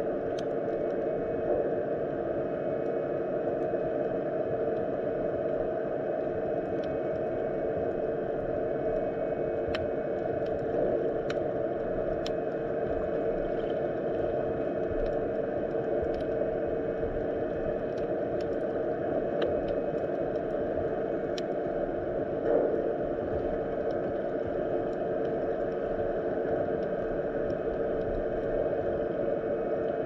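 Underwater sound of a shallow winter sea: a steady, muffled rush of moving water with scattered faint clicks and ticks.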